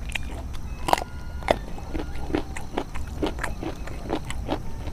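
A person chewing crisp raw vegetables (lalapan leaves and stems) close to the microphone: a run of short wet crunches, about two a second.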